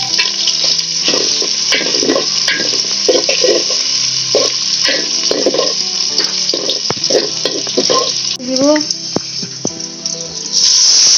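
Chopped onion, bay leaves and whole spices sizzling in hot oil in an aluminium pot, with a metal spatula scraping and clicking against the pot as they are stirred. Near the end, water poured into the hot oil turns the sizzle into a sudden, much louder steady hiss.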